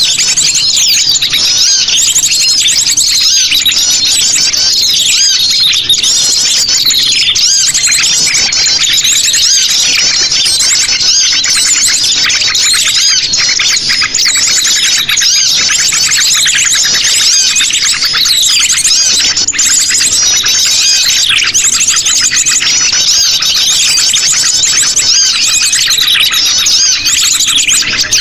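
Lure recording of sogon birds calling noisily, many voices at once: a dense, unbroken chatter of rapid high chirps and trills.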